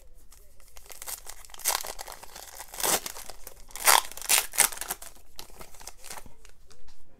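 A foil trading-card pack being torn open and crinkled by hand: crackling rips of the wrapper, loudest in a few surges between about two and five seconds in.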